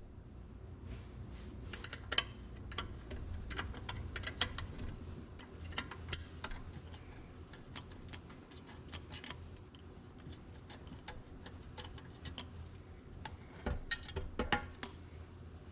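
Irregular sharp metallic clicks and clinks of tools and steel parts being handled while a tractor torque amplifier is taken apart, with a cluster of quicker clicks near the end.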